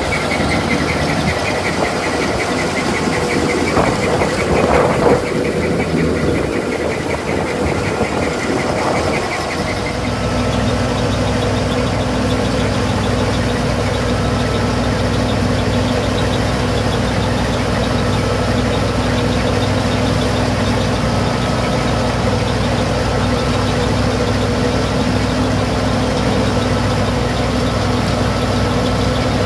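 Engine of harvest machinery running steadily; about ten seconds in, a deeper, even engine drone takes over and holds.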